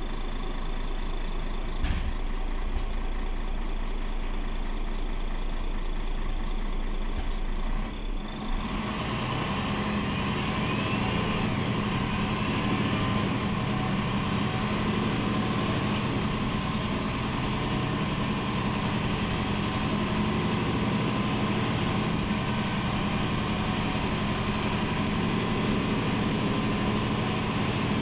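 Inside a MAN NL263 city bus, its MAN D2866 six-cylinder diesel idles with a low steady hum, with a sharp click about two seconds in. About eight seconds in, the bus pulls away and the engine and road noise step up louder and then run steadily.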